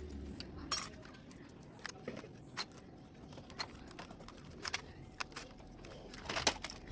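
Scattered light clicks and metallic clinks of small laptop parts and tools being handled during a teardown, roughly one a second, with a quick run of several clinks near the end.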